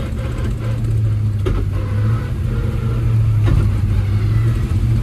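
1957 Chevrolet's freshly built V8 running steadily under way, a low engine drone that grows a little louder about three seconds in.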